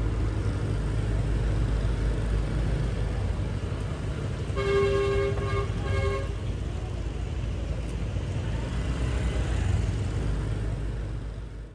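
Road traffic rumbling steadily, with a vehicle horn sounding about halfway through: one longer honk, then a short one.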